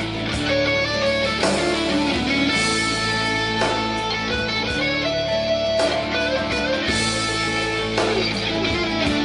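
A guitar ringtone from an LG Dare (VX9700) phone: plucked and strummed guitar music with a steady beat.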